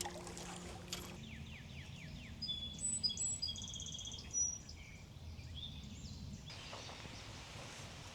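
Songbirds calling: a string of short, high whistled notes and quick chirps with a brief fast trill, over faint steady low outdoor background noise.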